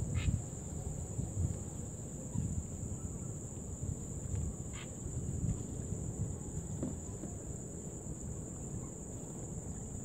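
Insects in the marsh vegetation singing in an unbroken, steady high-pitched drone, over a low wind rumble on the microphone. Two brief high chirps come about five seconds apart.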